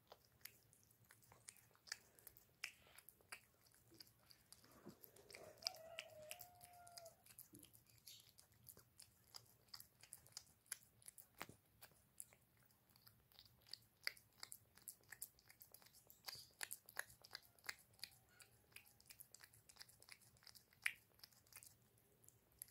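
A cat eating wet cat food from a small tin: quiet, wet chewing and lapping clicks, irregular and several a second.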